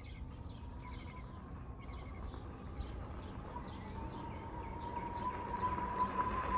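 Small birds chirping in quick, falling notes. Under them, the steady high whine of the Haoqi Rhino e-bike's electric motor grows louder as the bike approaches.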